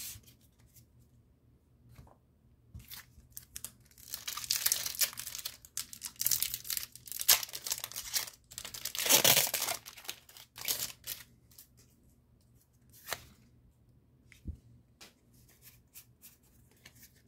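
Foil wrapper of a Pokémon TCG Lost Origin booster pack being torn open and crinkled, a dense stretch of tearing and crinkling from about four to ten seconds in. Then scattered light clicks and rustles as the cards are taken out and handled.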